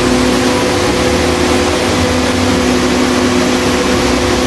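Educational small wind tunnel's motor-driven fan running steadily under test load: an even rush of air with a steady hum of several tones.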